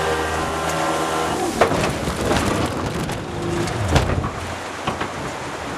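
Jet boat engine running over loud rushing water. The engine's steady hum fades after about a second and a half, leaving the water rush with a few sharp knocks.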